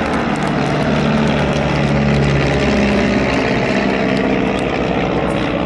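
Desoutter light monoplane's Cirrus Hermes four-cylinder inline engine and propeller running steadily in flight, its note wavering slightly in pitch.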